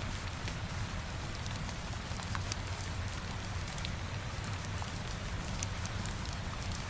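Steady rain mixed with a low fireplace rumble, with scattered faint ticks of drops or soft crackles.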